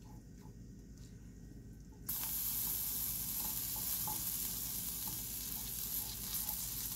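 Broccoli, black beans and rice sizzling in a cast iron wok on a hot plate while a spatula stirs them. The steady sizzle comes in suddenly about two seconds in, with light taps and scrapes of the spatula against the pan.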